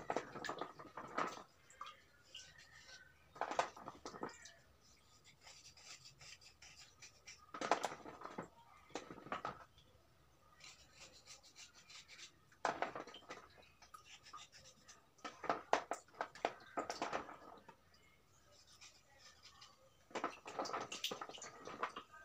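Hands sloshing and rubbing slate pencil sticks in a basin of water while washing them. The sound comes in irregular bursts of a second or two, a few seconds apart, with quiet between.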